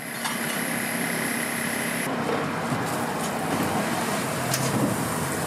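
Steady street-side background noise with a thin high whine that cuts off about two seconds in, followed by the steady hiss of a block of butter sizzling on a hot flat-top griddle, with low voices murmuring.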